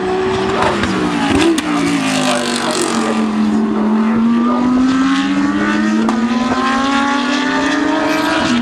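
GT3 race cars' engines running hard on track; the engine note falls over the first few seconds, then climbs steadily as they pull away.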